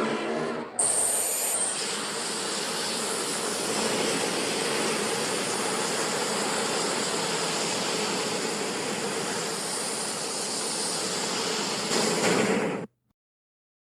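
MonsterVerse Godzilla sound effect: the end of a pitched roar, then about a second in a sudden, long, noisy rushing blast, jet-like, which holds steady for about twelve seconds and cuts off sharply near the end.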